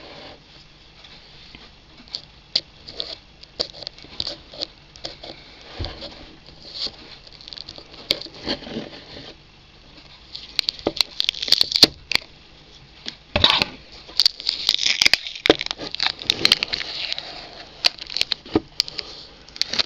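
Cling film crinkling and a plastic tub clicking and knocking as it is handled, a film-wrapped clip-lid food container. Sparse taps at first, then busier crinkling from about halfway, with one sharp click.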